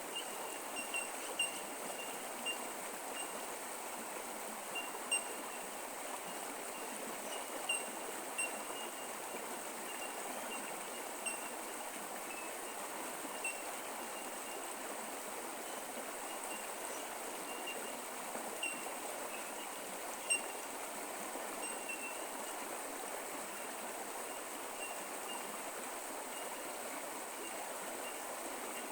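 Creek water running steadily, with short high pips scattered irregularly over it and a faint steady high tone.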